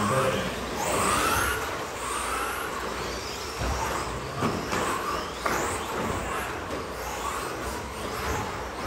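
Several 1/10-scale electric stadium trucks with 13.5-turn brushless motors racing on a carpet track: high motor whines rising and falling as the trucks accelerate and brake, over tyre noise, with a few sharp knocks in the middle.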